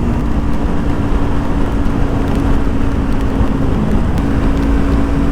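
Yamaha R25's 250 cc parallel-twin engine running at a steady cruise under heavy wind noise on the action camera's microphone. The engine note drops briefly about four seconds in, then returns to the same pitch.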